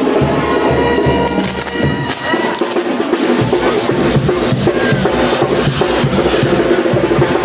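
A brass band playing with drums. About three seconds in, fireworks start crackling and popping rapidly over the music.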